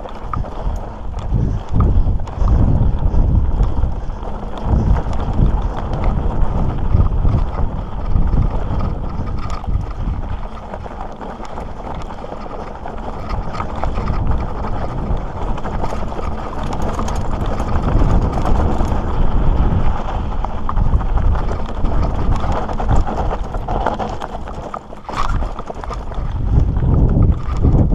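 Mountain bike rolling over a loose, rocky dirt trail: knobby tyres crunching over stones and the bike rattling with a steady run of small clatters, while wind rumbles on the microphone.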